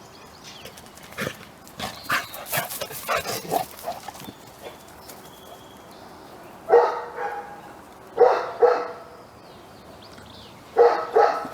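A dog barking: one bark, then a quick pair, then another pair near the end. Before the barks, scattered clicks and rustling.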